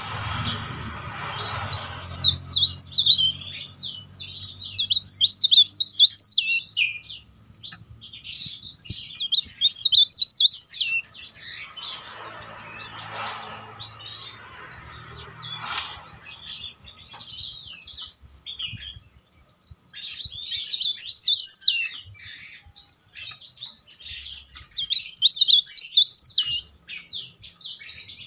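Caged cikrak daun songbird singing in bursts of a few seconds of rapid, shrill, rolling whistled trills, loud and tightly packed, with short pauses between the phrases.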